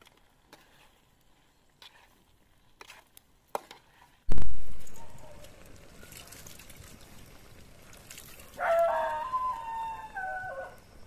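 Water poured from a steel vessel into a hot kadai of chicken gravy over a wood fire: a sudden loud splash about four seconds in, then a low steady hiss from the pan. Near the end a dog gives a whining, wavering call.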